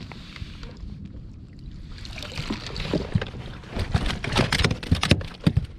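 Close handling noise on a small skiff: a jacket sleeve rustles over the camera as the angler reaches across, with a run of sharp knocks and clicks from rod and line handling. It grows denser from about two seconds in and is loudest near the end.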